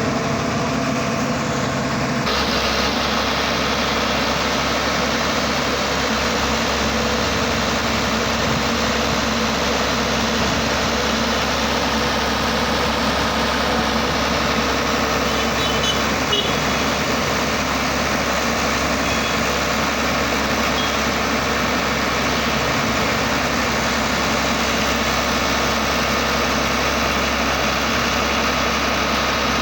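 Engine of an earth-drilling machine boring for optical fibre cable, running steadily. Its sound shifts abruptly about two seconds in, then holds.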